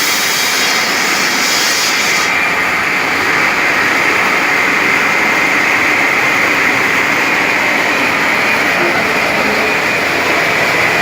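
Stone-cutting machine running steadily, its saw giving a loud, even noise with a strong upper whine; the highest hiss drops away about two seconds in.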